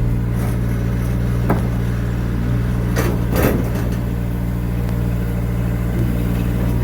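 An engine running steadily at a constant speed, with a few short knocks about a second and a half and three seconds in.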